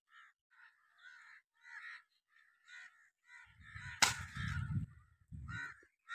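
A bird calling over and over in short, repeated calls, with one sharp crack about four seconds in.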